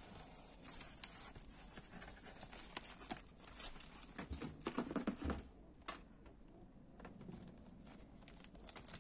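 Faint hand-handling noises of engine parts at a workbench: scattered light clicks, taps and rustles, with a busier run of taps about four to five seconds in.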